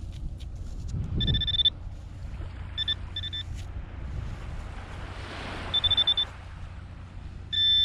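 Handheld pinpointer, a Garrett Pro-Pointer, sounding its steady high beep in separate bursts as it picks up metal in the sand: a long beep about a second in, two quick short beeps around three seconds, a pulsing beep near six seconds, and a long beep at the end. Wind rumbles on the microphone underneath.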